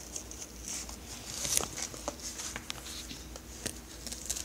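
Hands handling a fabric knee stabilizer brace: soft rustling of the fabric and straps with a few light clicks, and a short rustle about one and a half seconds in.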